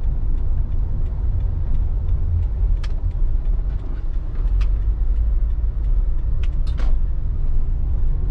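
Car driving, heard from inside the cabin: a steady low rumble of engine and road noise, with a few short clicks and knocks now and then.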